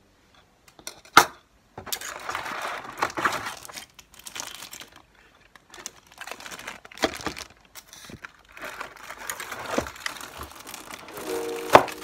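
Plastic packaging bags crinkling as they are handled, with a few sharp clicks and knocks of small items set down on a desk. The loudest knock comes just before the end.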